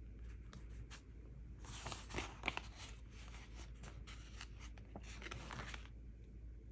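Paper stickers and planner pages being handled: three scratchy stretches of paper rubbing on paper, the first about two seconds in and the longest, with light ticks and taps in between.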